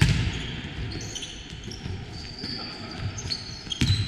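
Basketball game play on a gym court: a basketball thudding on the hardwood floor, with a hard impact at the start and another near the end, while sneakers squeak in short high chirps. The hall echoes.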